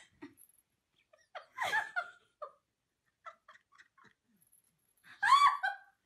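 High-pitched giggling from a person in short bursts, loudest near the end.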